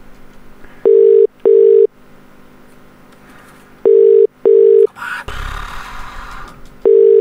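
Telephone ringback tone heard down the phone line: a double ring of two short beeps, repeating about every three seconds. It comes three times while the called phone rings unanswered.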